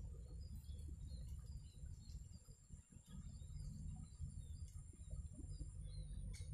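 Rural outdoor ambience: scattered short bird chirps and a steady high-pitched insect drone over a low rumble of wind on the microphone, with a soft click near the end.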